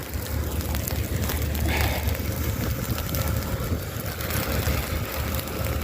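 Steady low rumble of a vehicle engine running, with a faint steady whine joining about two seconds in.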